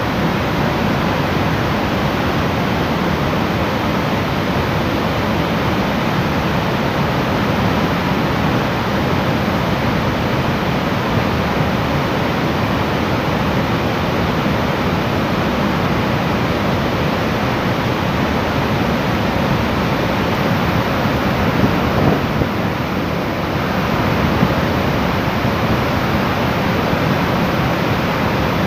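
Loud, steady rush of river floodwater pouring over walls and railings in a torrent.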